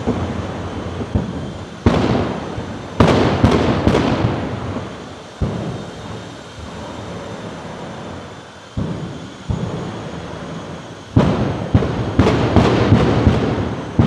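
Jet funny cars' afterburners going off with each throttle blip, loud cannon-like bangs as the injected kerosene ignites, over the jets' rumble. One bang comes about two seconds in and a quick run of them a second later; after a quieter spell of rumbling, another run of bangs starts about eleven seconds in.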